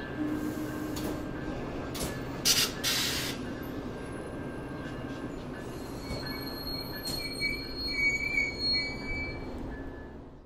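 VIA Rail Siemens Venture passenger cars rolling past along a station platform as the train pulls in, with a steady rumble of wheels on rail. There are a couple of short hisses about two and a half seconds in, and thin high-pitched wheel squeals from about six seconds in. The sound fades out abruptly at the very end.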